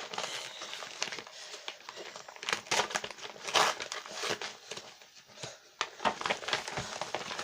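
Parcel packaging being handled and pulled open: irregular crinkling and rustling with sharper crackles and tearing, loudest a few seconds in.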